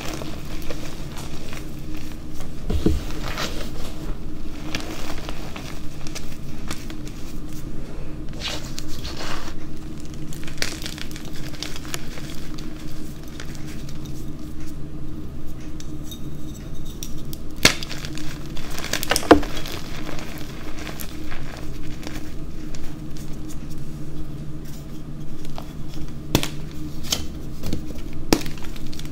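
Hands crushing and crumbling blocks of gym chalk and blue cornstarch reforms: soft crunching and squishing of powder, with irregular crackles and a couple of sharper snaps of chalk breaking in the middle.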